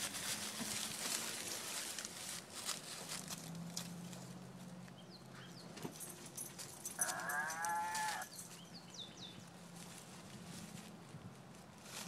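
A farm-animal sound-toy ball plays a recorded animal call, thin and about a second long, roughly seven seconds in. Dogs rustle and scrabble through dry leaves throughout.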